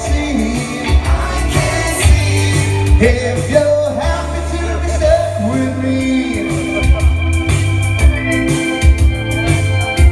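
Man singing live into a microphone over a pop backing track with bass and a steady beat. A little past halfway the voice stops and held organ chords carry the music on.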